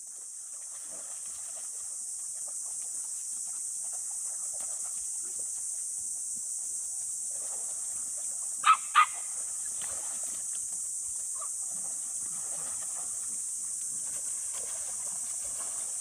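A puppy gives two short, sharp yips in quick succession about halfway through, over a steady high hiss and faint scattered rustling.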